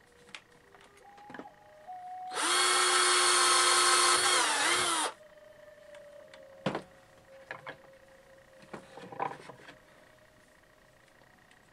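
A cordless drill runs for about three seconds, its pitch dipping and wavering just before it stops. A few light knocks and clicks of handling follow.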